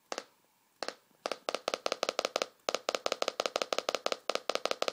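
MacBook Pro's volume-change feedback pop from its built-in speakers, repeated as the volume keys are pressed: two spaced pops, then a rapid run of about five a second from about a second in. The pop comes out super distorted, a fault that shows up after long Final Cut Pro renders and clears only on a restart.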